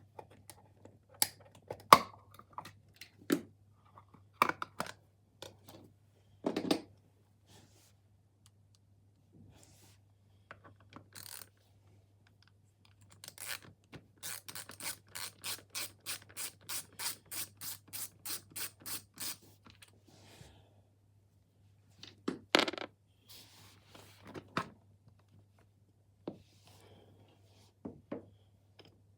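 Hands working on a Babyzen Yo-Yo stroller wheel to take it off: scattered plastic clicks, knocks and scrapes. Midway there is a run of even ticks, about four a second for about five seconds.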